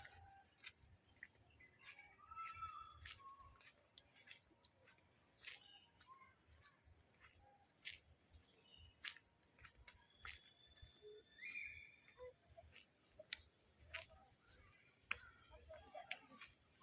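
Faint bird chirps and short whistled calls, scattered and irregular, over a steady high-pitched hiss, with many brief clicks.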